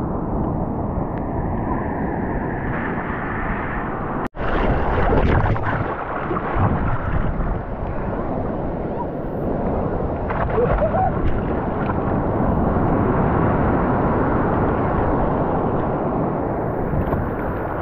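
Ocean surf and splashing water rushing over a microphone held at the water's surface, with wind buffeting it: a steady, loud wash of noise. It drops out for a moment about four seconds in.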